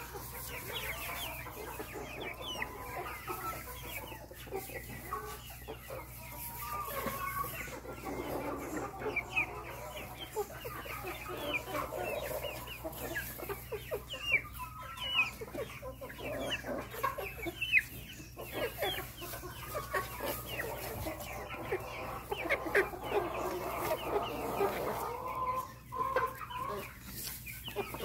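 Several chickens clucking in short, overlapping calls.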